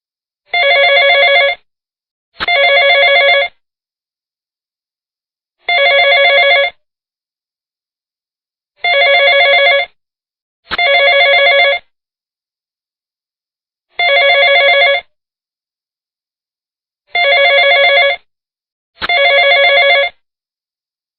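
Telephone ringing sound effect: rings about a second long with a fast flutter, some in close pairs and some single, with silence between them.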